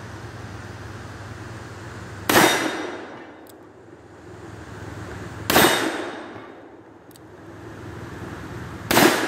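Smith & Wesson Model 19 .357 Magnum revolver fired three times, a shot about every three seconds, each shot trailing off in an echo.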